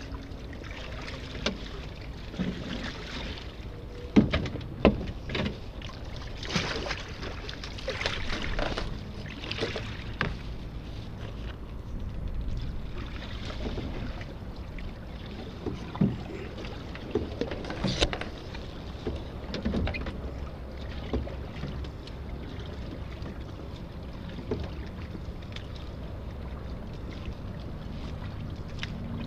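Irregular knocks and clatter aboard a small junk-rigged trimaran, loudest about four and five seconds in, over a steady rush of water and wind, with brief hissing rushes in the first ten seconds.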